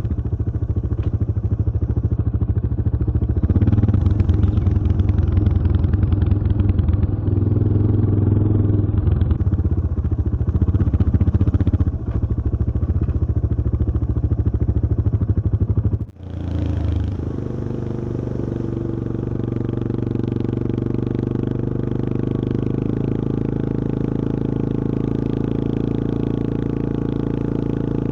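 Yamaha XT225 Serow's air-cooled single-cylinder four-stroke engine running, louder and rougher through the first half. It drops out briefly about sixteen seconds in, then runs quieter and steadier.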